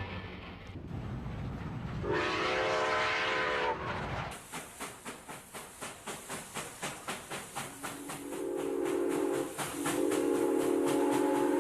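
Train sound effects: a short chord-like train whistle blast about two seconds in, then an even beat of a running train at about three or four beats a second, and from about eight seconds a long multi-note train whistle that breaks briefly and sounds on.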